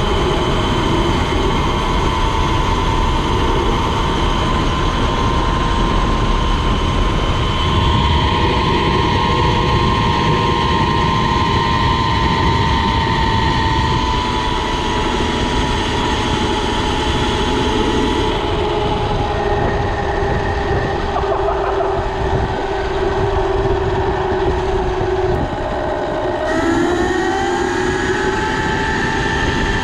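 Whine of a 6000 W, 72 V electric hub-drive mini bike motor under way, over wind and tyre rush at speed. The whine slowly falls in pitch, then dips and rises again near the end as the bike speeds back up.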